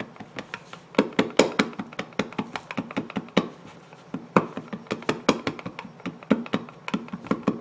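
A Stampin' Up! ink pad tapped and pressed repeatedly onto a large wood-grain rubber stamp on a clear acrylic block, inking it: a quick, irregular run of taps and knocks, several a second.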